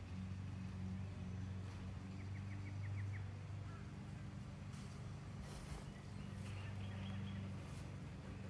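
A steady low hum, with a bird's quick trill of about six chirps about two seconds in and a few faint brief hisses later on.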